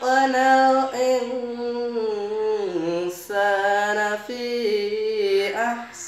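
A young male voice reciting the Quran unaccompanied in melodic tajweed style. It holds long notes joined by slow ornamented glides, with a falling turn about halfway through and short breaths between phrases.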